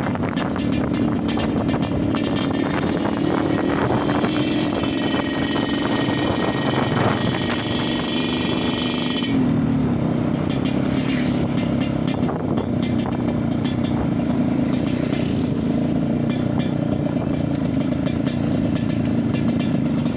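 Yamaha RX-King two-stroke single-cylinder motorcycle engine running steadily, with the throaty, snoring ("ngorok") exhaust note. Its pitch dips briefly about halfway through, then settles again.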